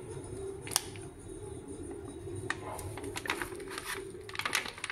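Laminated plastic-foil powder pouch crinkling as it is handled and set down, with a single sharp click about a second in and a run of crackles, busiest near the end, over a steady low hum.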